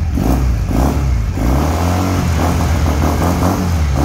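A 150 cc Super Harley cruiser's twin-cylinder engine with twin carburettors and twin exhausts, running and revved up and down several times.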